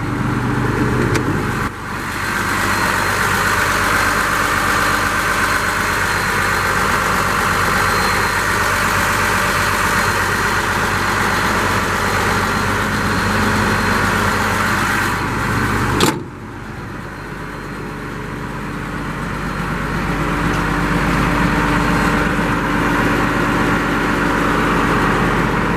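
Caterpillar 924G wheel loader's diesel engine idling steadily. About sixteen seconds in there is a sharp knock and the sound drops, then builds back up over a few seconds.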